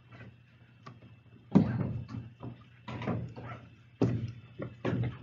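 A few soft knocks and clicks about a second apart: keys being pressed on a calculator while the answer is worked out, over a faint low electrical hum.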